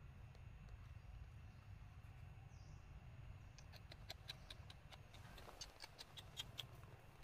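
Near-silent low rumble. About halfway through comes a quick run of faint, sharp clicks and crackles: dry leaves and twigs being stepped on as the camera is carried over the leaf-littered ground.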